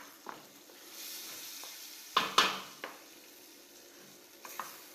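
Cuttlefish strips, onion and white wine sizzling in a stainless steel sauté pan, with a steady hiss. A stirring spoon knocks sharply against the pan twice about two seconds in, with a few lighter clicks after.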